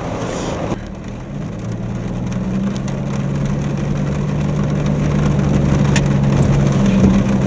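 Jeep Wrangler's engine running steadily at low speed while crawling along a trail, heard from inside the cab, growing gradually louder.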